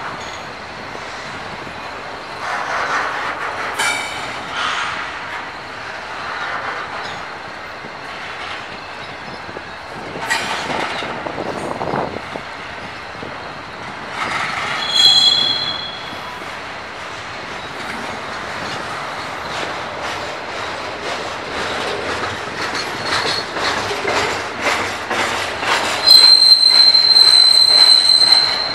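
Double-stack intermodal freight cars rolling past on the near track, wheels rumbling and clacking over the rail joints. A short high squeal comes about halfway through, and a loud, steady high-pitched squeal sets in near the end.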